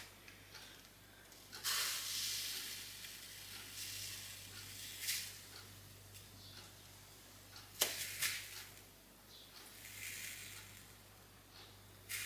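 Granulated sugar poured from a glass jar into a glass bowl in several short pours, each a dry hiss of running grains, with two sharp clinks about eight seconds in.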